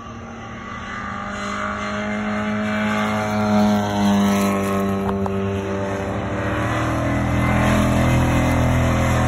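Jaguar E-type racing cars at speed. One engine note swells and drops in pitch as it passes about halfway through, and a second, louder engine takes over near the end.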